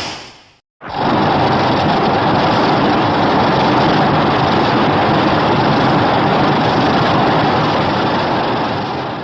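Loud, steady rushing noise with no clear pitch, a designed kaiju sound effect, starting abruptly about a second in after a short gap and fading out at the end.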